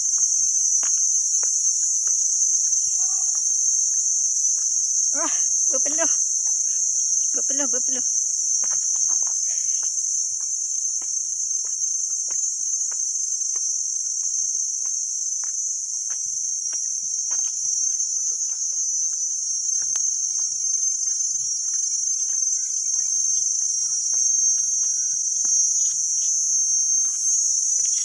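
Steady, loud, high-pitched drone of a forest insect chorus, with faint scattered clicks and knocks throughout.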